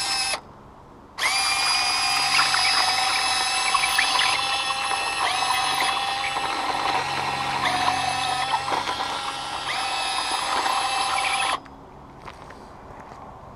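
Electric motors and gearboxes of a radio-controlled model construction machine whining as it works, the pitch shifting as the motors change speed. It cuts out briefly near the start, then runs for about ten seconds before stopping.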